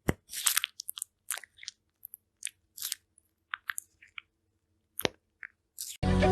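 Crunchy chewing: a string of short, sharp crunches and clicks with brief silent gaps, like teeth biting through something hard and dry. Music starts suddenly near the end.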